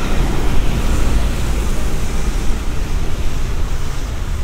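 Steady noise of traffic passing on a wet road, a low rumble under a spray-like hiss.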